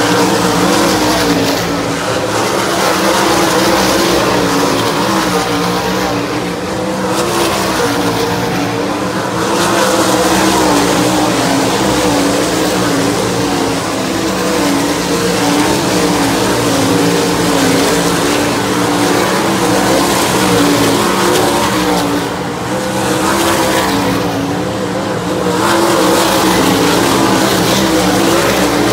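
A field of 410 sprint cars racing, their high-revving V8 engines running hard together in a loud, continuous drone. It eases briefly a few times and then swells again as the pack comes back around.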